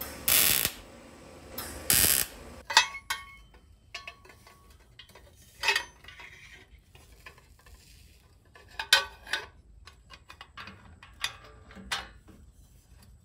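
Two short bursts of welding hiss as tack welds go onto a stainless steel exhaust pipe, then scattered metallic clinks and clanks as exhaust pipe sections are handled and fitted under the car.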